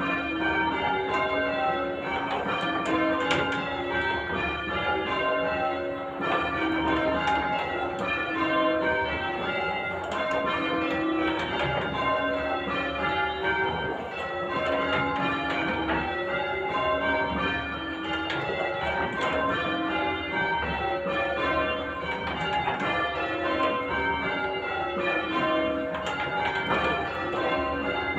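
Church tower bells rung in changes: the bells strike one after another in an even, continuous run of ringing strokes.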